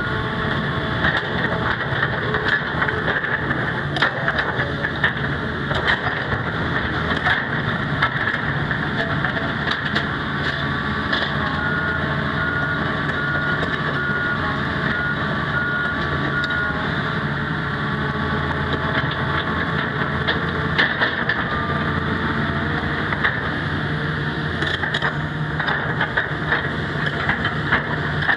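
2007 Hitachi ZX350LC-3 excavator's diesel engine running steadily as the machine swings its upper structure and works the boom and bucket, with frequent short metallic clanks and rattles. About twelve seconds in, a warning alarm beeps in short, even pulses for about five seconds.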